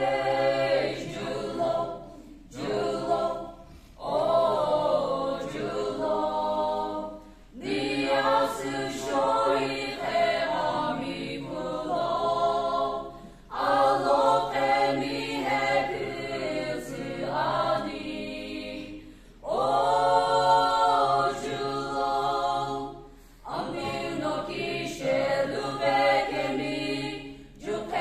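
Small mixed choir of men and women singing a welcome song unaccompanied, in phrases separated by short breath pauses.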